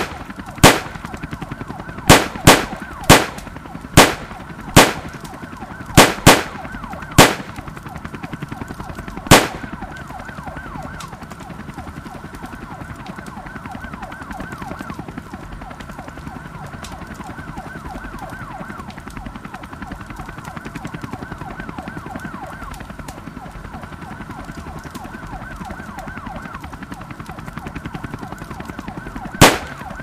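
Emergency sirens wail steadily throughout. Over them come sharp, loud gunshots: about ten scattered over the first ten seconds and a single one near the end.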